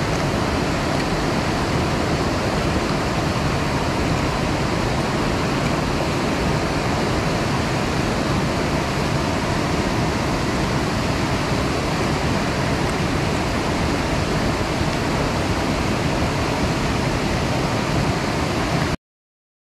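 Steady rushing noise of a large waterfall, with wind from the falls buffeting the microphone; it cuts off suddenly near the end.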